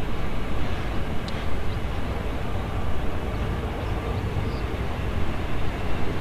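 Wheels of a transfer train of new, unpowered NS ICNG multiple-unit cars rolling past on the rails, a steady low rumble.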